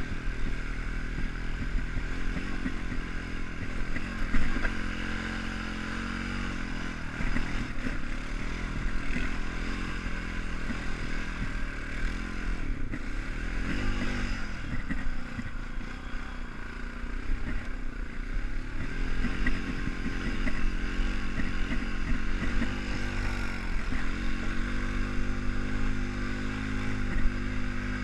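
ATV engine running as it rides over a snowy logging road, its pitch dipping and rising with the throttle and climbing to a steadier, higher note in the last few seconds, with clatter from the machine over the rough ground.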